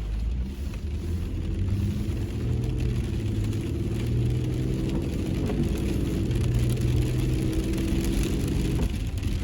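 A car driving, its engine running with a steady low hum over tyre and road noise.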